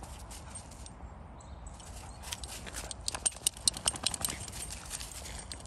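Thin snow over grass crunching under a cocker spaniel puppy as it steps and noses through it: a run of quick, irregular crackles, loudest about halfway through.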